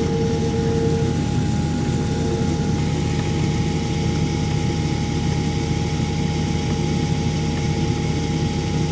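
A heavy engine running steadily at constant speed, with a steady hum over a low rumble.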